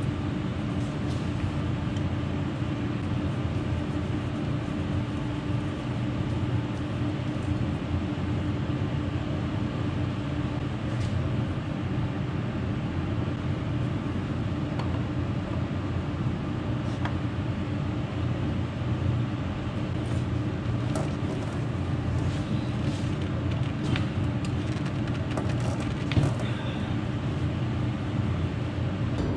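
Steady low machine hum with a constant tone, unchanging throughout, along with a few light clicks and taps as a tractor's spin-on fuel filters are handled and taken off.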